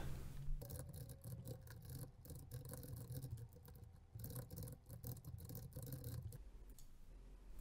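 Faint, rapid clicking of computer keyboard keys being typed, stopping a little over a second before the end, over a low steady hum.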